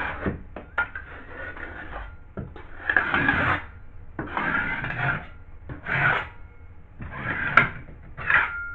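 Utility knife blade scraping rough edges off cut drywall, in a series of uneven rasping strokes, some short and some lasting about half a second.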